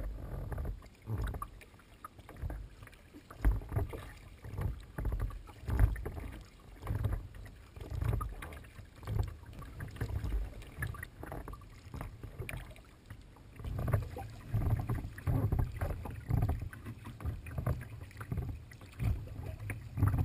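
Kayak being paddled across a lake: water sloshing and splashing against the plastic hull with each stroke, in surges about once a second.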